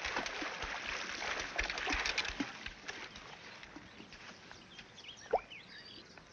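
Dense crackling rustle of a small paper cone of fishing bait being handled and shaken into a palm, with scattered light clicks, fading out about three seconds in. A few faint high chirps follow, and one short rising chirp about five seconds in.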